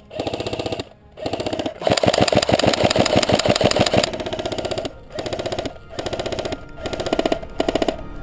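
Airsoft electric rifle (AEG) firing full-auto in short bursts, about seven in all, each a fast rattle of roughly 17 shots a second over the whine of the gearbox motor. The longest burst, about two seconds, starts a couple of seconds in.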